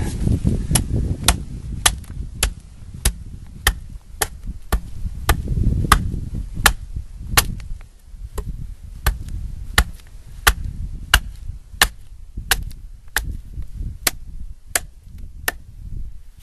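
Fiskars X15 axe striking an upright length of dry hedge wood in quick, short, evenly paced strokes, about one and a half a second, each a sharp crack. A low rumble of wind on the microphone runs underneath.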